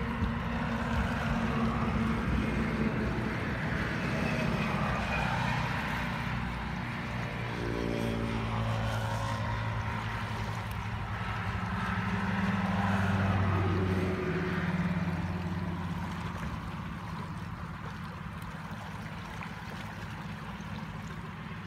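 Muddy floodwater rushing in a rain-swollen canal, with the engine drone of a dump truck and other heavy traffic passing on the road. The engine noise shifts in pitch, is loudest a little past halfway, then fades, leaving the steady rush of water.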